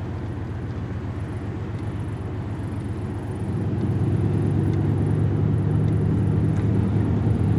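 Truck driving slowly, heard from inside the cab: a steady low engine and road rumble that grows louder about halfway through.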